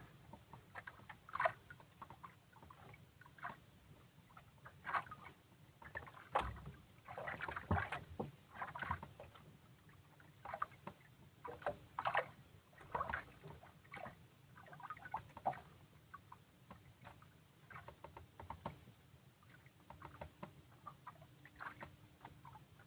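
Water lapping and slapping irregularly against the hull of a small boat at sea, with scattered small knocks and one heavier thump about six seconds in.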